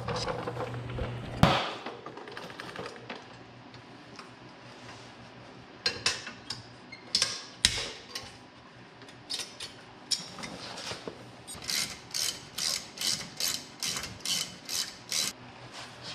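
Hand tools clicking and clinking against the rear brake caliper of a car as its retaining spring is worked off with pliers: scattered sharp metal clicks, a louder knock about a second and a half in, then a run of evenly spaced clicks about two a second in the second half.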